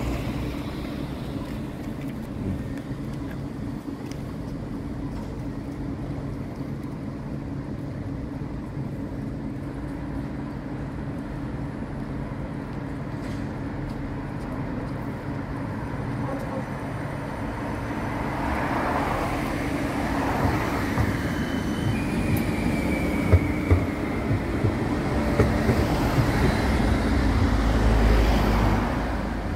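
Newcastle light rail tram (CAF Urbos) standing with a steady electrical hum. In the second half a tram runs close by, louder, with a falling whine, a few clicks, and wheel and rail noise that peaks as it passes.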